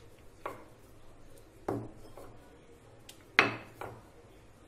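Wooden rolling pin knocking and rolling on a marble rolling board while small dough discs are rolled thin: a few sharp knocks, the loudest about three and a half seconds in.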